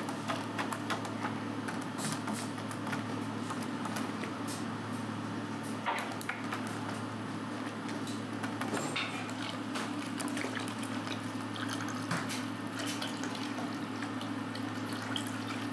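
Broth simmering and bubbling in a compartmented stainless-steel oden pot, with scattered light clicks over a steady low hum.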